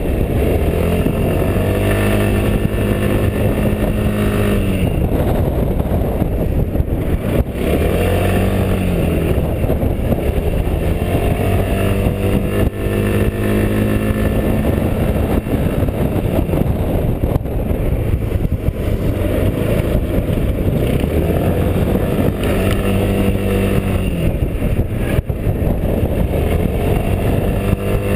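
Quadro 350D three-wheeled tilting scooter's single-cylinder engine pulling uphill, its note rising and falling again and again as the throttle is opened and eased off. Wind rushes over the chest-mounted camera's microphone underneath.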